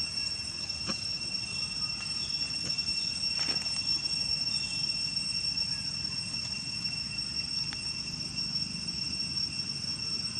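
Insects droning steadily at a high, unchanging pitch, under a low rumble, with a few faint ticks.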